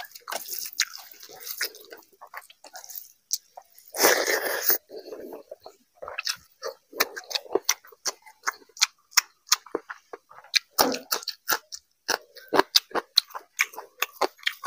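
Close-miked wet chewing and lip-smacking of rice and fish curry, with fingers squishing rice into gravy on a steel tray, a steady run of short wet clicks. About four seconds in comes one loud rush of noise lasting under a second.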